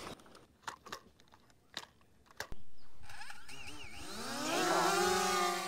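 A few faint clicks, then a small quadcopter drone's motors start suddenly about halfway through and spin up, their propeller whine rising in pitch and then holding steady as it is readied for a hand launch.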